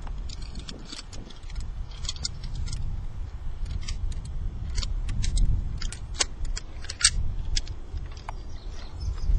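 Zip-line carabiners and clips clinking and clicking against each other, many irregular sharp clicks, over a steady low rumble.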